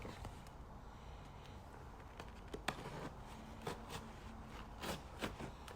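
Faint handling of product packaging: scattered light clicks and taps, a few more in the second half, over a low steady hum.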